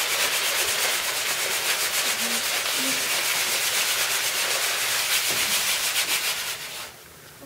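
A group of students making a scratchy rubbing sound effect together, many fast strokes blended into one dense rasp. It dies away near the end.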